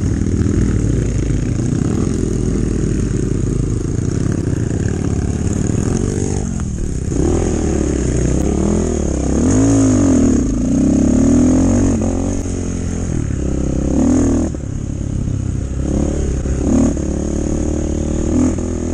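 Enduro motorcycle engine running steadily, then revved up and down several times in the middle, with a few short throttle blips near the end.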